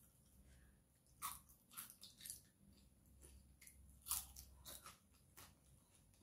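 A person chewing crispy deep-fried short mackerel: faint, irregular crunches that begin about a second in and stop shortly before the end.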